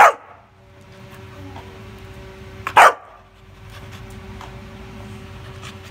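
Young black Labrador puppy barking twice: two short, sharp barks a little under three seconds apart.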